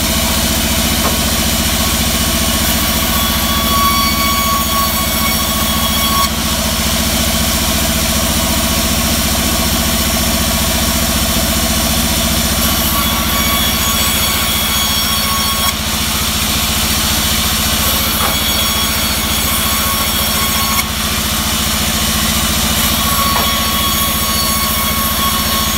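Large vertical bandsaw running steadily with a low motor hum while ripping teak planks. A higher singing tone comes in during each cut and drops away sharply as the cut ends, about four times.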